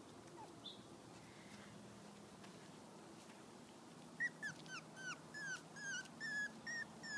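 Miniature schnauzer puppy whimpering. About four seconds in it starts a rapid string of short, high, falling cries, three or four a second.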